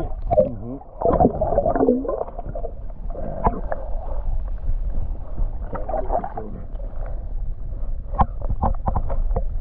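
Muffled underwater sound picked up by a submerged camera in lake water: a steady low rumble with gurgling. There is one sharp knock a few seconds in and a quick run of knocks near the end.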